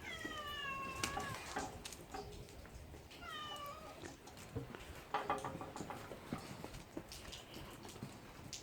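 A cat meowing twice, two drawn-out calls that fall in pitch, about three seconds apart, followed by scattered clicks and knocks.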